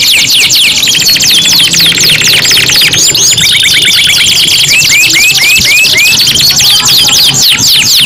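Three domestic canaries singing over one another: fast rolling trills of rapid downward-sweeping notes, a buzzy held note a little after three seconds in, and slower separate whistles around five seconds.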